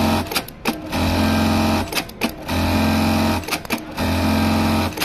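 Electronic industrial bartack sewing machine sewing one bartack after another: each tack is a fast, even stitching clatter over a steady motor hum lasting about a second, with short pauses between tacks, about four in a row.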